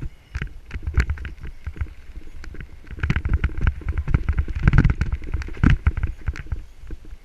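Mountain bike descending a rough dirt trail: dense, irregular rattling and clattering of the bike over bumps and roots, over a low rumble of wind on a helmet-mounted camera. The clatter grows louder and busier about halfway through.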